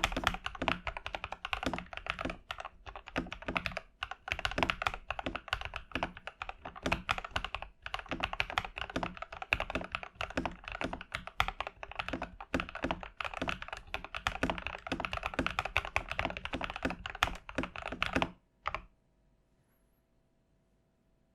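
Fast typing on a TM680 budget 65% mechanical keyboard with PBT keycaps and lubed, holee-modded JWK stabilizers: a dense, irregular run of keystrokes with the thocky sound the build is made for. The typing stops abruptly about eighteen seconds in, with a stroke or two just after, leaving only a faint steady hum.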